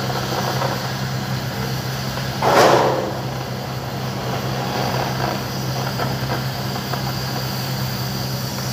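Steady low machine hum under the hiss of an oxy-fuel cutting torch cutting steel, with one short, louder rush of noise about two and a half seconds in.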